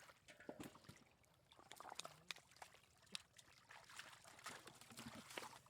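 Faint splashing and trickling of shallow water, with many scattered small clicks and knocks.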